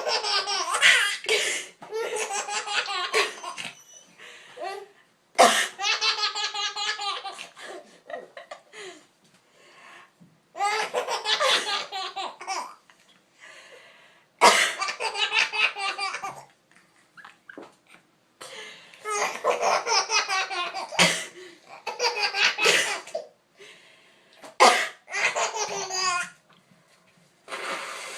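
A baby laughing in long, pulsing fits of belly laughter, each set off by a person's sharp coughs, which come several times with a new round of laughing after each.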